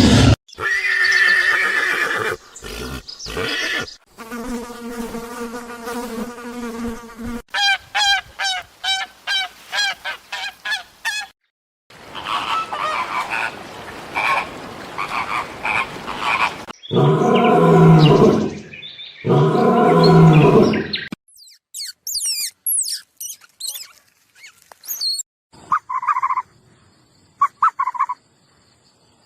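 A string of different animal calls, cut one after another: pitched calls, a fast run of short chirps, two loud low calls about two seconds apart, then high gliding whistles and three short calls near the end.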